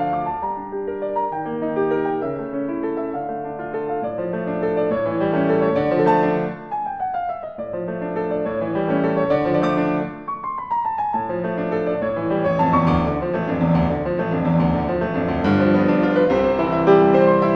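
Solo piano music playing steady chords, broken twice by quick descending runs of notes, about six and ten seconds in.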